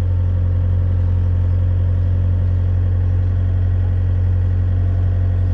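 Excavator's diesel engine idling steadily, a constant low hum, while the hydraulic rock breaker sits still on the fence post without hammering.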